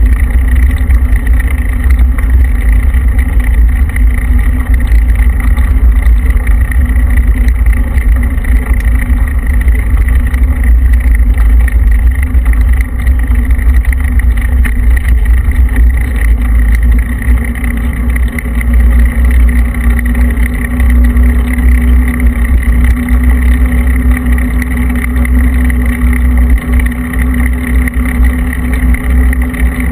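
Steady driving noise from a vehicle moving along fresh asphalt: heavy wind rumble on the low-mounted microphone with tyre and road noise, and a steady hum that grows a little stronger in the second half.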